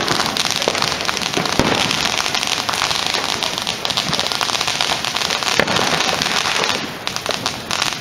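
Fireworks crackling rapidly and continuously: a dense run of small pops, with a couple of sharper ones, that thins out about seven seconds in.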